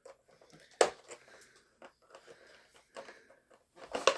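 Toy packaging being handled and worked open, giving scattered faint rustles and small clicks, with one sharp click about a second in and a louder cluster of rustling near the end.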